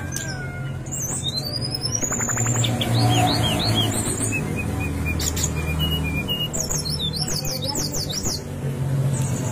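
Brown-chested jungle flycatcher singing a varied song of whistled phrases that slide up and down, ending in a quick run of falling notes, over a steady low rumble.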